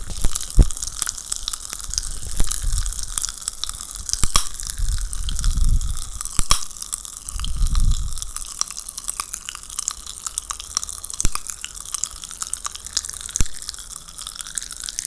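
Popping candy crackling: a dense run of tiny pops and snaps with a few louder cracks, and two brief low rumbles about halfway through.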